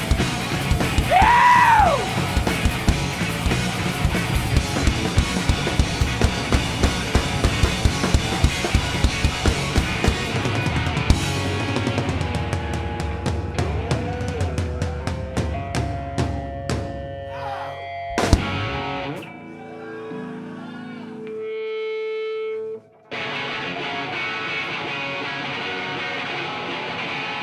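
Live rock band playing an instrumental passage, drums hit hard and steadily under guitar. About eleven seconds in the drumming stops and held guitar notes ring out, and after a short break the full band comes back in.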